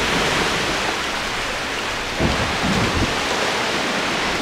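Ocean water rushing and splashing around a kayak, a steady loud wash with a few low thumps starting about two seconds in.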